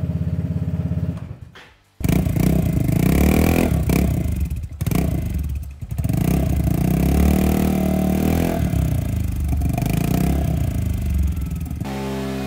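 Vespa GTS 300's single-cylinder four-stroke engine running through a freshly fitted short Pordoi exhaust with no catalytic converter, revving up and down with the rear wheel driving a dyno roller. The sound drops out briefly about a second in, returns loud, and settles to a steadier, lower tone near the end.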